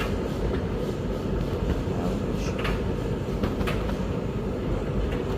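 Hoover VTC5911NB tumble dryer running on a refresh cycle, its drum turning with a steady rumble. A few short clicks come about halfway through.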